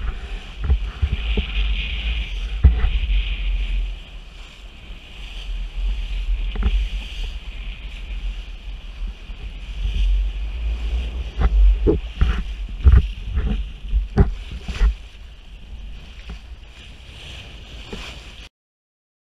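Dufour T7 sailboat beating through chop: a steady low wind rumble on the microphone and rushing water, with irregular thuds and splashes as the hull meets the waves. The sound cuts off abruptly near the end.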